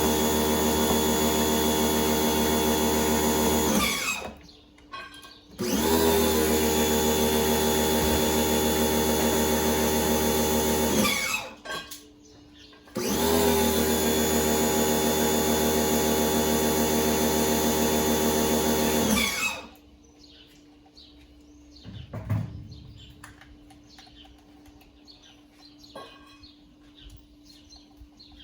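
Electric motor running steadily in three long runs of about five or six seconds each, separated by short pauses; each run ends with the pitch sliding down as the motor winds down. A few faint clicks follow.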